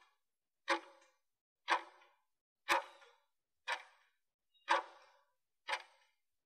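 Clock-style tick of an interval timer, one tick a second, each with a short ring, counting down the last seconds of a 20-second exercise interval.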